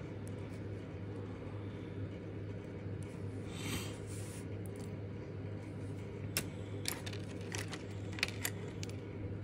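A steady low hum throughout, with a brief scratchy rustle about four seconds in, then a run of light, sharp clicks in the second half as a plastic gel pen is handled and set down on the paper.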